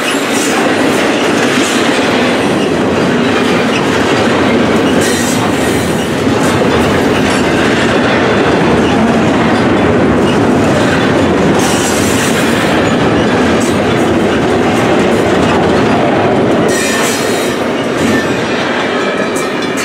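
Double-stack intermodal container well cars rolling past on steel rails: a steady loud rumble of wheels with clickety-clack over the rail joints, and a few brief brighter passages of higher-pitched wheel noise.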